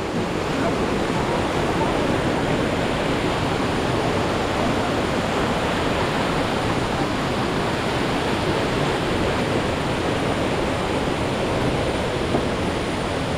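Rushing water, a steady, loud, even roar of falling or fast-flowing water.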